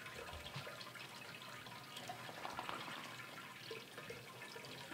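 Thick liquid poured from a basin into a woven strainer bag, trickling and dripping faintly through it.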